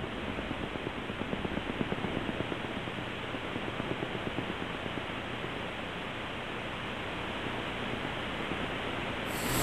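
Steady rushing, rumbling noise with a fast irregular crackle, picked up by a fixed outdoor camera's microphone while the earthquake shakes the town and buildings collapse. Right at the end, a louder, brighter rushing sound cuts in.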